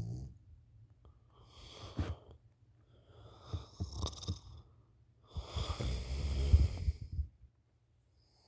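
A sleeping woman snoring into a pillow: three rattling, wheezy snoring breaths a second or so apart, the third the longest and loudest, then a quiet pause.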